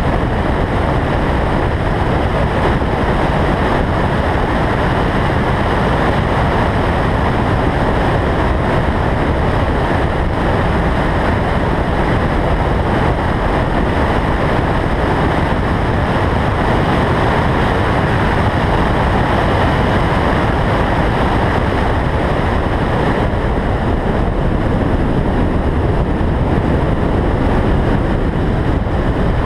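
Loud, steady rush of wind over the microphone of a camera mounted on the roof of a car lapping a race track at speed, with engine and tyre noise blended underneath.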